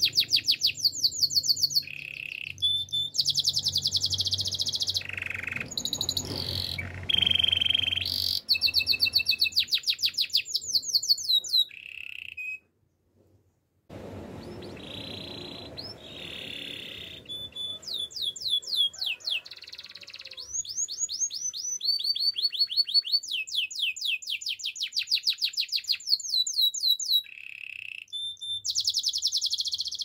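Domestic canary singing: a run of rapid trills of fast repeated notes, each trill giving way to a different one. The song breaks off into silence for a moment about halfway, then resumes.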